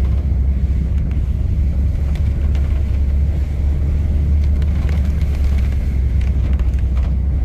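Steady low engine and road rumble of a car being driven, heard from inside the cabin.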